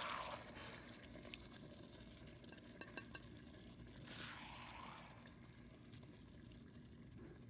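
Quiet, with faint liquid sounds from the sauce in an electric wok and a few light clicks and scrapes of a plastic spatula as the food is scooped out, with soft hisses at the start and about four seconds in.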